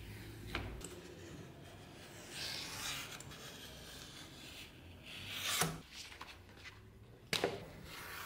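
Utility knife cutting through a sheet of leather on a plastic cutting board: scratchy rasping strokes, one louder a little past halfway, and a sharp click near the end.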